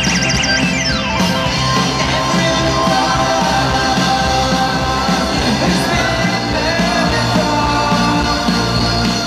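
A live rock band playing with a male lead vocal, heard loud from within the festival crowd. A keyboard swoop falls in pitch within the first second.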